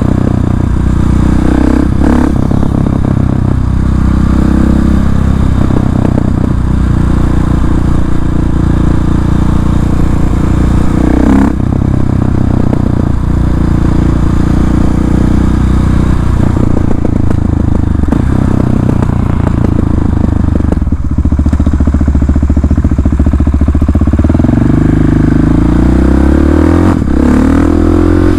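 KTM 690 SMC R single-cylinder engine through an open Arrow exhaust with the dB-killer removed, being ridden: loud, with the revs rising and dropping through throttle changes and crackles on the overrun, climbing hard near the end.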